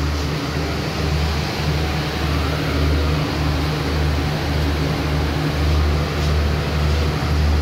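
Running noise inside a moving passenger train coach: a steady hiss with a strong low rumble that pulses unevenly.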